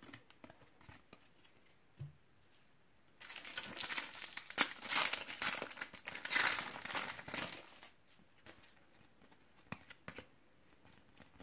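A foil Panini World Cup 2018 trading-card sachet being torn open and crinkled by hand: a crackly rustle lasting about four and a half seconds, starting about three seconds in.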